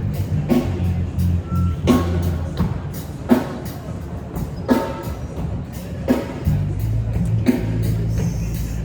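Background music with a steady beat: a bass line under a drum hit about every second and a half.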